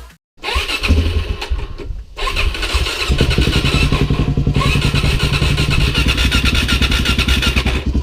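Motorcycle engine sound: uneven for the first few seconds, then a steady, evenly pulsing churn from about three seconds in that keeps going.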